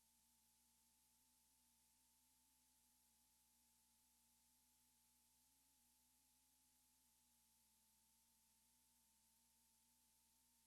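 Near silence: only a faint hiss with a faint steady tone underneath.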